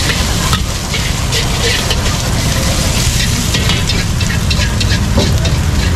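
Vegetables, egg and meat sizzling as they are stir-fried in a steel wok, with a metal spatula scraping and clinking against the wok many times. A steady low rumble runs underneath.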